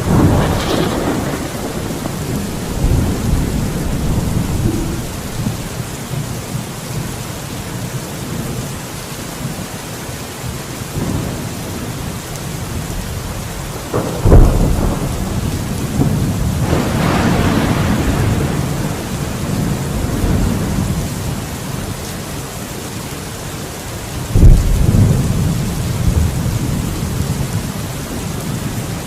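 Thunderstorm: steady rain falling, with thunder throughout. A crack of thunder comes at the very start, a sharp loud clap about 14 seconds in rolls on into low rumbling with a swell around 17 seconds, and another sharp clap about 24 seconds in rumbles away.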